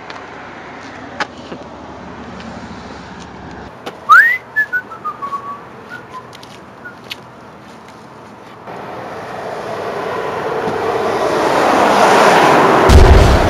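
A loud upward whistle about four seconds in, followed by a few short chirps; later a rushing noise swells steadily toward the end.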